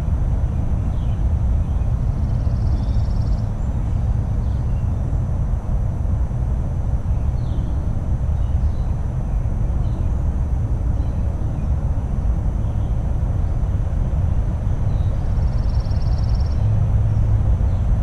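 Garden ambience made up of a steady low rumble, with faint scattered bird chirps and two short high trills, one a couple of seconds in and one near the end.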